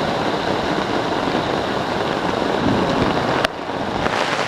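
Heavy rain falling, a steady hiss. A sharp click about three and a half seconds in, after which the rain sounds thinner and hissier.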